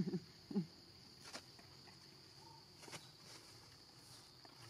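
A steady high-pitched insect drone from a cricket-like chorus. Two brief vocal sounds come in the first second, with a few faint clicks later.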